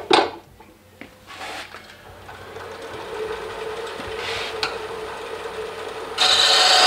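Wood lathe running while a 1/8-inch parting tool cuts into the spinning turned wooden spoon blank to part it off. A steady hum builds from about two seconds in, and near the end a loud, harsh scraping cut starts.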